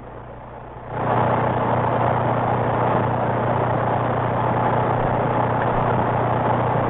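CB radio receiver on AM channel 19 putting out a steady rush of static that comes on suddenly about a second in, with a steady low hum under it.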